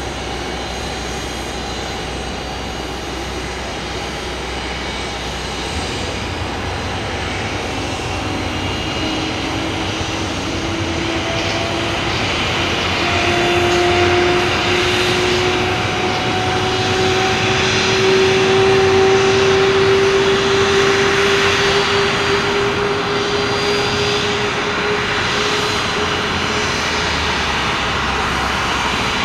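Boeing 737 turbofan jet engine starting up: a whine that rises slowly in pitch over about fifteen seconds while a steady rush builds and grows louder.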